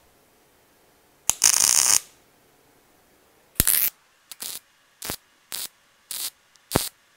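MIG welder arc crackling in short bursts as it tack-welds dots of weld down a vertical corner seam on steel tube: one burst of about half a second, then a quick run of about six short dots, roughly two a second. The dots bridge a gap in the seam so it can then be solid welded without melting back.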